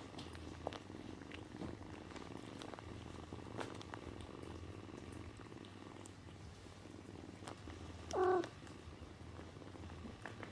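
Domestic cat purring steadily, with a single short meow about eight seconds in.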